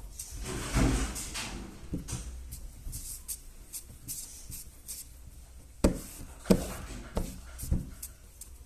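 Handling of a sticky putty and its plastic pot: a soft rubbing about a second in, then four sharp knocks in the second half.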